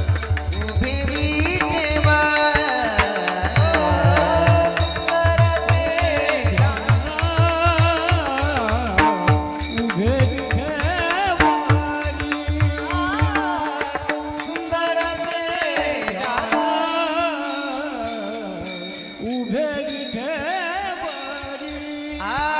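Male voice singing a Marathi kirtan panchpadi in an ornamented, wavering melody over a steady drone. A regular drum beat accompanies the singing and stops a little past halfway.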